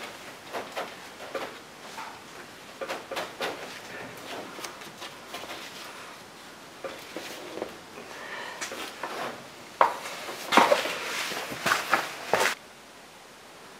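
Rustling and scattered light clicks and knocks of a new car headliner and its support bars being worked into a car's roof. A denser, louder run of rustling and knocks comes near the end, then the sound drops away suddenly.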